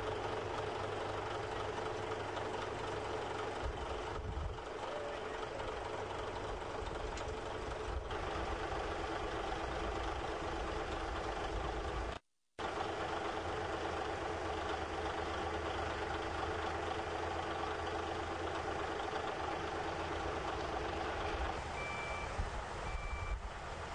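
Diesel engines of heavy recovery equipment running steadily, cutting out briefly about halfway. Near the end a back-up alarm beeps about once a second.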